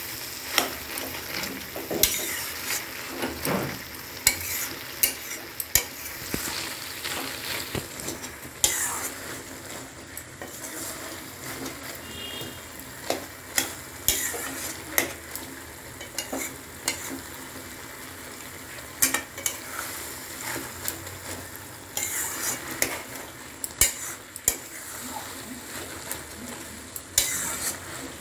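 A spatula stirring and scraping a thick vegetable curry in a pan, with irregular sharp knocks against the pan over a steady sizzle. The cauliflower-stem chorchori is being stirred and mashed as it cooks down at the end of cooking.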